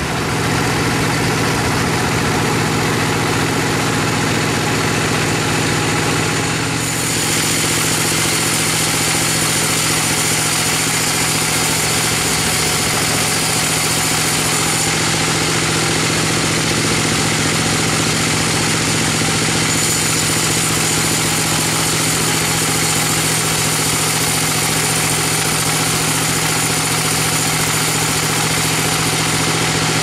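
Sawmill band saw slicing lengthwise through a bayur (wadang) log: a steady machine hum under the hiss of the blade in the wood, the hiss turning brighter about seven seconds in.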